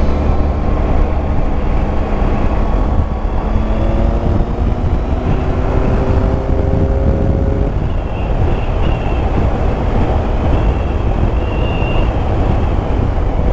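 Motorcycle riding at speed, heard from a helmet-mounted camera: heavy wind rush over the microphone, with the Yamaha Tracer 9 GT's three-cylinder engine underneath. The engine's pitch climbs steadily over a few seconds from about three seconds in as the bike accelerates.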